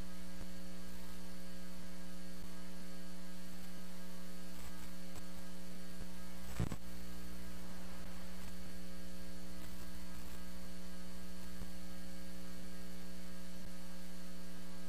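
Steady electrical mains hum with a buzzy stack of overtones, broken once about halfway through by a single sharp click.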